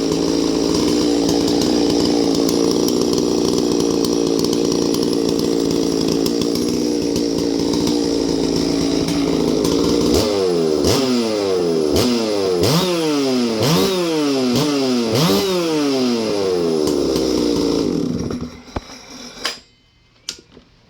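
Ported Farmertec MS660 two-stroke chainsaw held at a steady high rev for about ten seconds, then blipped up and down about half a dozen times, then shut off near the end with a couple of clicks.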